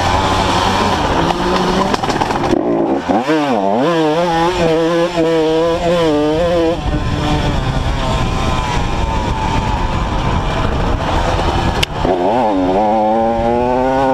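Honda CR two-stroke motocross bike engine under way, heard from the rider's helmet: the revs drop and then climb steeply about three seconds in and again near the end, over a rushing wind noise on the microphone.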